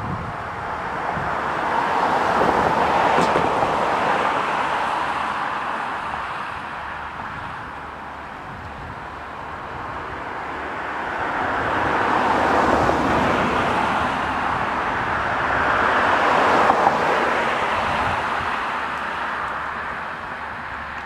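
Road traffic: passing cars, their noise swelling and fading several times.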